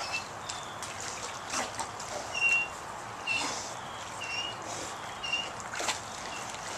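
Dogs swimming in a pool, their paddling making light splashes and lapping water. Short high chirps repeat about once a second through the latter part.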